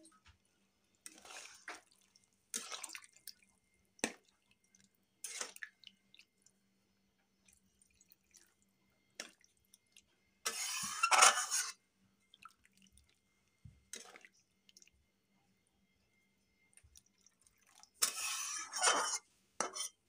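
Flat metal spatula stirring and scraping a thin, watery curry gravy in a metal kadhai, with the water just added for the gravy. It comes in short bursts of scraping and sloshing, the longest and loudest about ten seconds in and another near the end.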